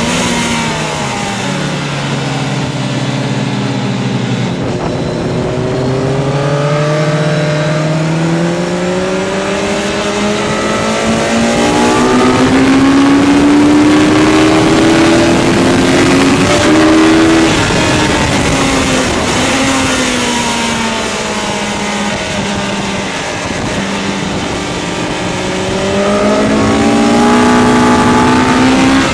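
Motorcycle engine heard from the rider's seat on a circuit lap: the engine note drops as the bike slows for a corner, then climbs steadily for about ten seconds under acceleration, eases off, and rises again near the end. A constant rush of wind runs under it.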